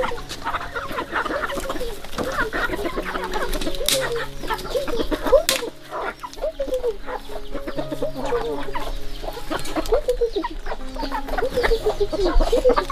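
A flock of chickens clucking and calling, many short, overlapping calls, with two sharp clicks about four and five and a half seconds in.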